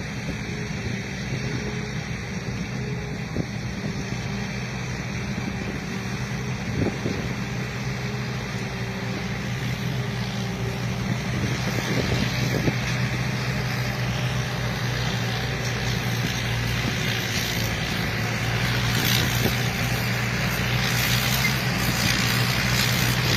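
Thai Charoen Karn Chang combine harvester running steadily with a constant low engine hum, growing gradually louder with more hiss over the second half.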